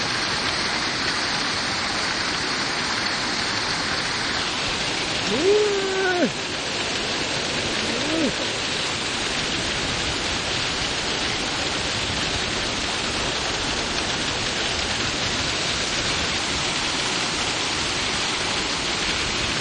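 Heavy rain mixed with hail pouring down steadily in a dense, even hiss. Twice a short pitched voice-like sound cuts through it, about five seconds in and again near eight seconds.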